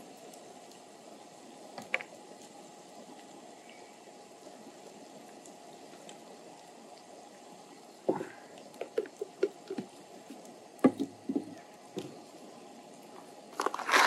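A steady hiss of freshly boiled water. From about eight seconds in come light knocks and clinks of cookware being handled, with a louder clatter near the end.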